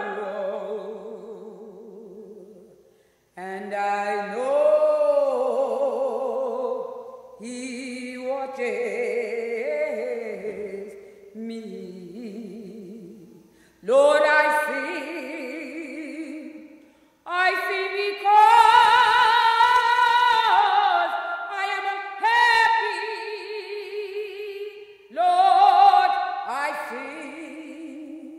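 Unaccompanied singing: a series of sustained sung phrases with vibrato, each held for a few seconds and separated by short pauses.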